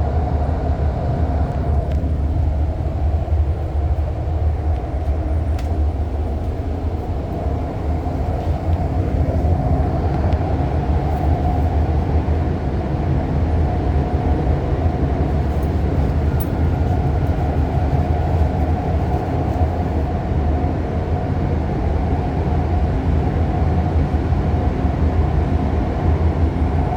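REM light-metro train running at speed, heard from inside the car: a steady low rumble of wheels on rail with a constant hum above it.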